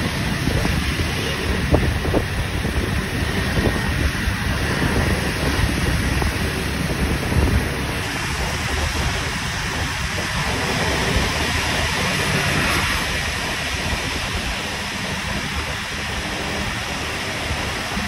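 Wind buffeting the microphone over a steady low rumble of traffic and road noise from moving vehicles. There is no horn melody.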